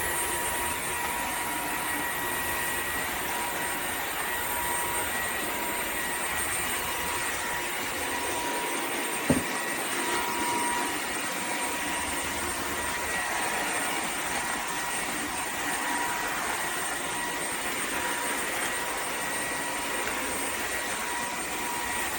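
Dreame H14 Pro wet-dry vacuum mop running steadily: a constant motor whoosh with a thin high whine. A single short knock about nine seconds in.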